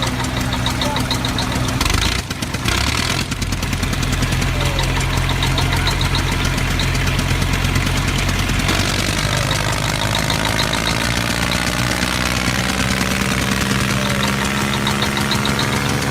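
Tractor engine running steadily at a low, even speed, with a short noisy burst about two seconds in.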